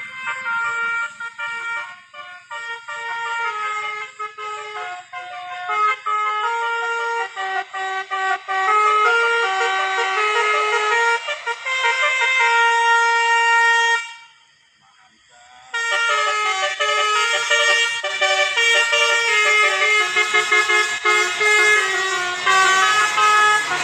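Bus 'telolet' multi-tone air horn playing a melody of held, stepped notes. The notes break off for a moment about two-thirds of the way through, then the tune resumes.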